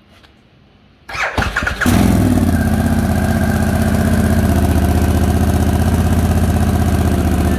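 Harley-Davidson Pan America's V-twin engine cranked on the electric starter about a second in, catching within a second and settling into a steady idle.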